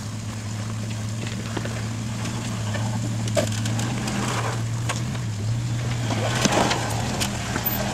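Jeep Wrangler JK engine running at low crawling speed with a steady low hum, while its big off-road tyres crunch and crackle over sandstone rock and grit. The sound grows a little louder and the crackling busier as the Jeep comes nearer.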